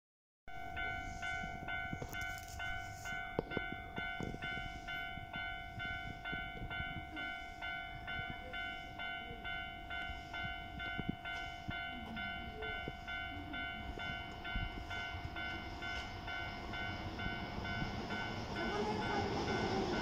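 Electronic Japanese level-crossing warning bell ringing in a quick, even rhythm over a steady tone. Near the end the rumble of an approaching Keisei 3700-series electric train grows beneath it.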